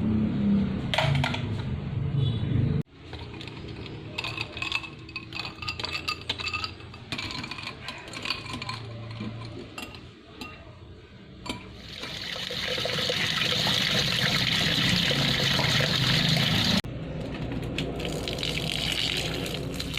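Water running and pouring, with clinks of glass or dishware, in short segments that change abruptly; a steady stretch of running water comes about two thirds of the way through.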